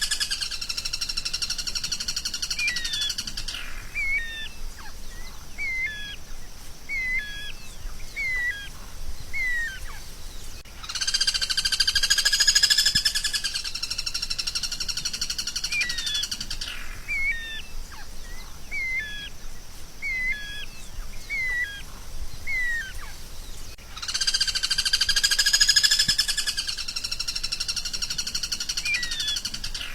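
Songbird song on a masteran track for caged songbirds to learn from. A harsh, buzzy trill of about three seconds is followed by a string of short sweeping whistled notes, a little more than one a second. The same phrase comes back about every thirteen seconds, as a loop.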